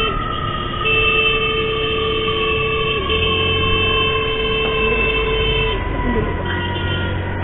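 A vehicle horn blares in two long held blasts, the first about two seconds, the second about two and a half. Under them, a siren wail falls slowly in pitch, over motorcycle and traffic rumble.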